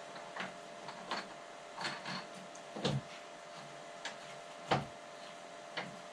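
Scattered clicks and knocks of snow-blower handle parts and fasteners being handled and fitted, with two louder knocks about three and almost five seconds in, over a faint steady hum.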